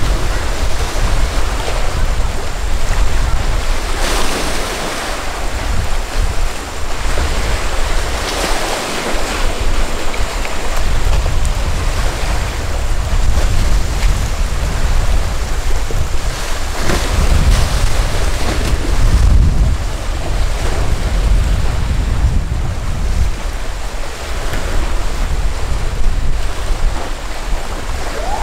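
Rough inlet surf and breaking waves under heavy wind rumbling on the microphone, with louder wave crashes about four seconds in, around eight seconds and around seventeen seconds.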